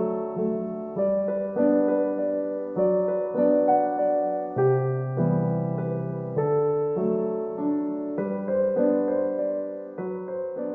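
Gentle solo piano background music, slow notes struck and left to ring, beginning to fade out near the end.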